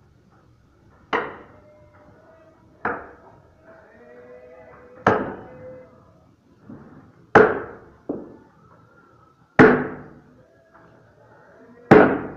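Sledgehammer blows on a steel wedge driven into a large log to split it: six heavy strikes about two seconds apart, each with a brief metallic ring, and a lighter knock after the fourth.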